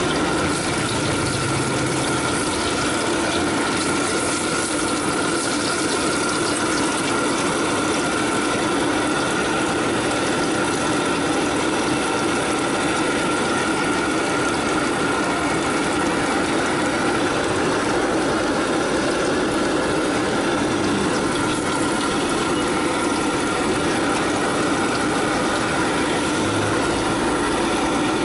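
Food frying in oil in a steel wok over a gas burner: a steady sizzle with the rushing hiss of the burner flame underneath, unchanging throughout.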